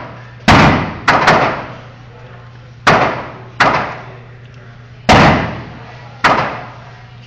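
A gun fired about seven times in quick, uneven succession, each shot sharp and followed by a fading echo, two of them close together about a second in.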